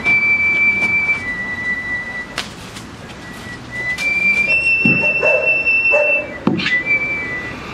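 A series of long, steady whistled notes, each held about a second and stepping between a few nearby high pitches, with a few soft knocks in between.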